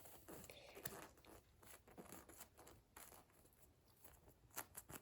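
Near silence with faint rustling and a few light taps of small toys being handled, the taps coming near the end.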